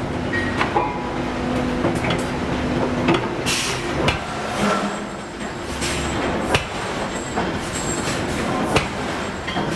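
Hydraulic forging hammer striking steel, with sharp metallic blows at irregular intervals over a steady machinery hum. The clearest blows come about two-thirds of the way through and near the end.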